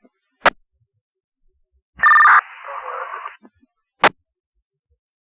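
Fire department two-way radio traffic heard over a scanner. A squelch click, then a loud, brief two-tone data burst as a radio keys up, then about a second of weak, garbled transmission hiss with no readable words, and another squelch click.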